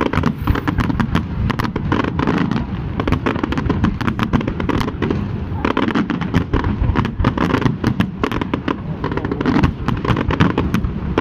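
Aerial fireworks shells bursting in a rapid, continuous barrage of overlapping bangs.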